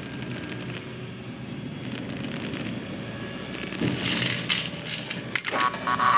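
Animated-film sound effects of toys moving inside sheet-metal air vents: a low steady duct hum, with metallic clanks and clinks building up over the last two seconds.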